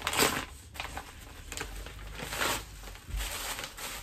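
Padded paper mailer envelope being slit open with a knife: crinkling and tearing of the packaging in several bursts, the loudest at the start, with a dull bump about three seconds in.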